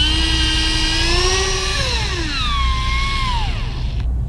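Electric motor of a 3000-size electric fishing reel whining as it winds in line. Its pitch rises, then drops and levels off, then falls away as the motor stops about four seconds in. The reel is retrieving the line after the rig broke off on the rough bottom.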